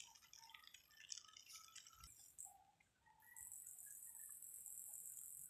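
Faint outdoor ambience: scattered soft ticks and chirps, then from about three seconds in a steady high-pitched buzz.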